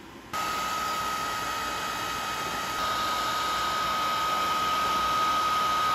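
A motor-driven blower running steadily, a whir with a constant high-pitched whine, which starts abruptly just after the beginning.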